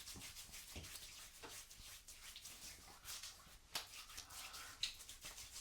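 Faint scattered taps, clicks and rubs from handling a bottle of Thayers witch hazel toner and applying it to freshly shaved skin.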